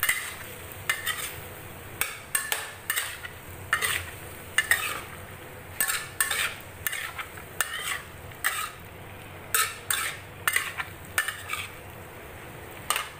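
A spatula stirring and scraping a stir-fry of chicken and bitter gourd around a stainless steel wok, in irregular scrapes and clanks about twice a second, over the steady sizzle of the food frying.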